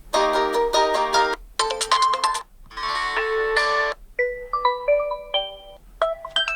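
Oppo A96 phone alarm tones playing through the phone's speaker. First a tone of repeated bright chord bursts with short gaps between them, then about four seconds in a different tone of single short notes stepping up and down in pitch.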